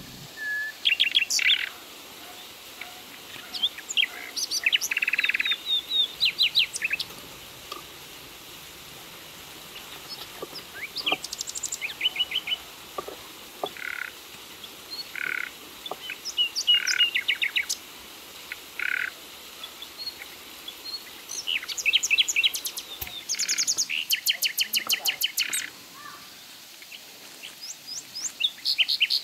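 Songbirds chirping and trilling in short bursts of quick repeated high notes, over a steady rush of running water from a small waterfall.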